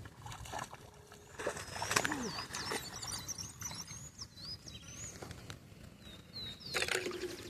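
Small birds chirping and whistling, with a few sharp knocks, one about two seconds in and another near the end.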